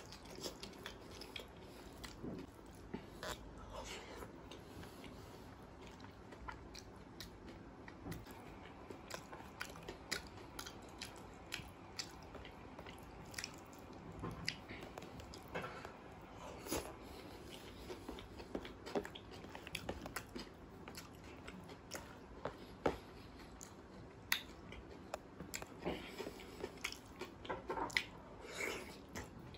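Close-miked chewing of rice mixed with dal makhani, eaten by hand, heard as many short, irregular wet clicks, with fingers squishing through the food on the plate.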